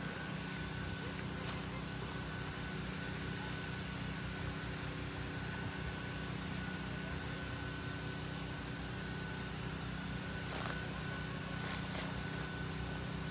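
A steady machine hum with a thin high tone over an even rushing noise, unchanging throughout.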